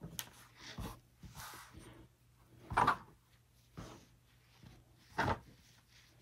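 Fabric being handled and pinned on a table: scattered rustles and light clicks, with two louder brief brushes of fabric, about three and five seconds in.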